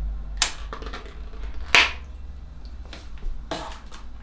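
A small container of herring being opened by hand: a few sharp clicks and crackles of the packaging, the loudest a little under two seconds in, over a steady low hum.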